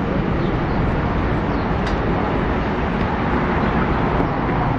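City street ambience: a steady hum of road traffic.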